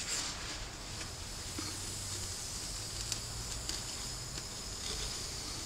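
Faint steady sizzling hiss of a hot stainless steel wire cutting through foam as the piece is pushed slowly along it, with a few faint ticks.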